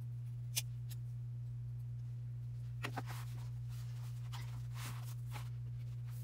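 Craft scissors snipping through lace appliqué: a sharp snip about half a second in, then a couple of light clicks near three seconds and soft rustling as the lace is handled and pressed onto a paper page. A steady low hum runs underneath.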